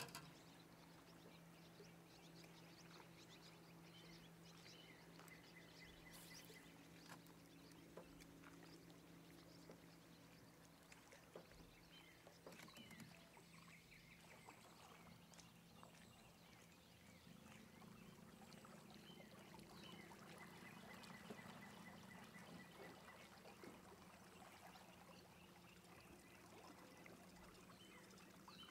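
Faint lakeside evening ambience: a low steady hum, scattered soft ticks, and a faint fast pulsing trill from a calling creature that comes in briefly early on and again through the second half.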